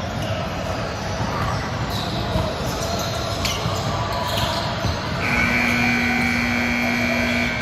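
Echoing sports-hall din of an indoor volleyball game: ball hits and bounces on the hardwood floor amid general court noise. About five seconds in, a steady horn tone starts and holds for about two and a half seconds.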